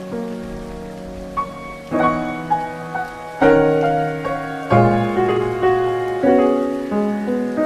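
Background piano music: slow chords struck about every second or so, each ringing and fading before the next.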